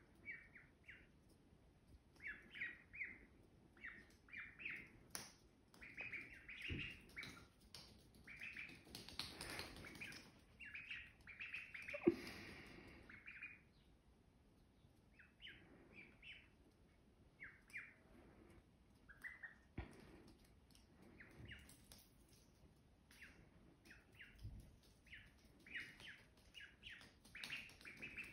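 Ducklings peeping: many short, high peeps in quick clusters, pausing briefly past the middle. A brief rustling noise and one sharp tap come around the middle.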